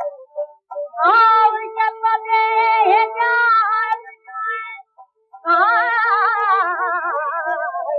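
A woman singing a ghazal in raga Bhairavi on a 1910 acoustic-era 78 rpm shellac gramophone record. She sings two phrases with a short break between them, and the second phrase has a wavering, ornamented held note. A steady accompaniment note runs underneath.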